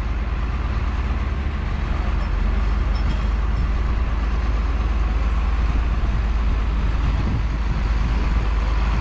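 Heavy diesel machinery running steadily with a deep low rumble.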